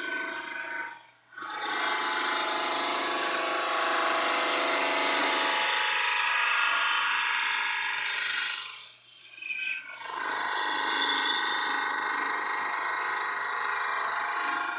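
Stationary power tool cutting through a plastic workpiece as it is fed by hand: a steady, rasping cutting noise with a whine in it. It breaks off briefly about a second in and again around nine seconds in, then resumes.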